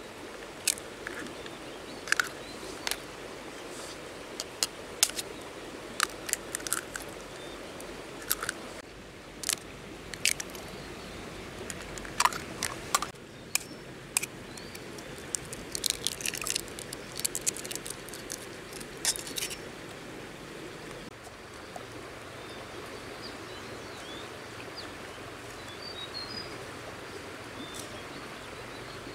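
Sharp taps and cracks of a knife blade striking eggshells to crack them open, scattered irregularly through the first two-thirds, over a steady background hiss.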